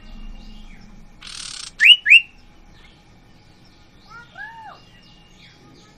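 Sirtu (iora) calling: a short rasping hiss, then two loud, sharp rising whistled notes in quick succession, and about two seconds later a few softer arched notes, over faint chirping of other birds.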